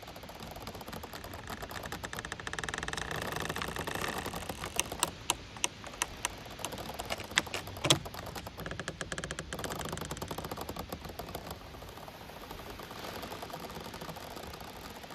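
Giant bamboo stems creaking and squeaking as they bend and rub against each other in the wind: a long drawn-out stuttering creak of rapid ticks that swells and eases, with a few sharp cracks in the middle, the loudest about eight seconds in.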